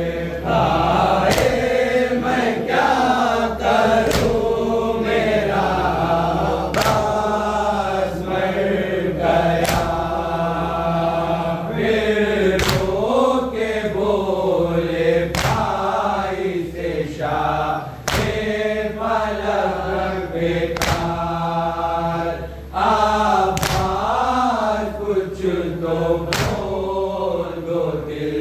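Men chanting a Shia nauha (lament for Abbas) in chorus, with sharp strikes at a steady beat about every second and a half, in keeping with matam chest-beating. A steady low hum runs underneath.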